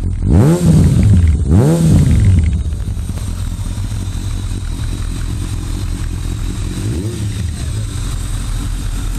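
Kawasaki ZRX1200R's inline-four engine running through a carbon slip-on silencer: a steady idle with two quick throttle blips, about half a second and a second and a half in, and a lighter blip about seven seconds in.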